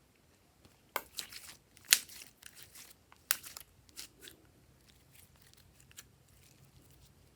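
Glossy slime being kneaded and pressed, giving a run of crackling, popping clicks from trapped air, bunched in the first few seconds with the sharpest pop about two seconds in, then a few faint clicks.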